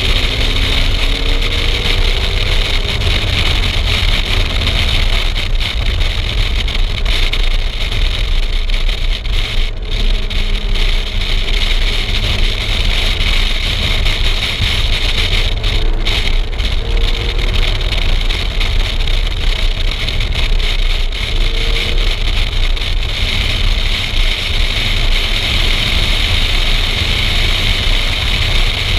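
Car at speed on a race track, heard through heavy wind buffeting on a microphone mounted outside the car. The engine note sits faintly underneath, rising and falling as the car accelerates and shifts.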